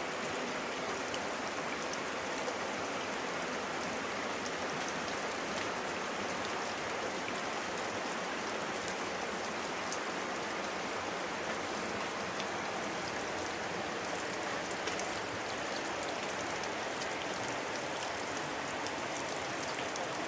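Steady rushing of a creek's flowing water, an even hiss without a break.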